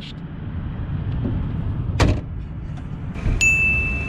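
A low steady rumble with a single sharp click about halfway through, then, near the end, a steady high-pitched ding-like tone that starts suddenly and holds.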